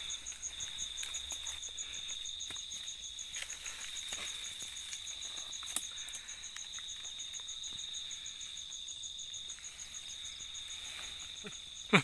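Night chorus of crickets and other insects: one steady high trill with a second, rapidly pulsing high call above it. Scattered faint rustles and clicks come through, with one sharper click about halfway, from oil palm fronds being pushed through.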